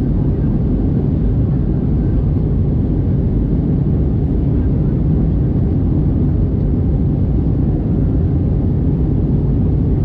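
Steady low cabin rumble inside an Airbus A320-214 in flight, from its CFM56 engines and the airflow past the fuselage, heard from a window seat over the wing.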